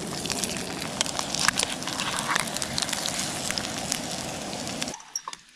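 Eggs and purple potato slices frying in butter in a pan on a canister camp stove: steady sizzling with many small crackles, which stops abruptly near the end.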